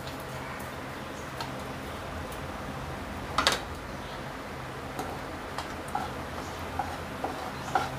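Dried red chilli and sugar frying in hot oil in a non-stick kadai: a faint steady sizzle with scattered small pops and ticks, the sharpest about three and a half seconds in.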